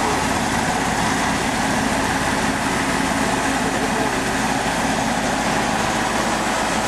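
Engine and hydraulics of a tractor-mounted BoreMaster hydraulic well-drilling rig running steadily at a constant pitch and level.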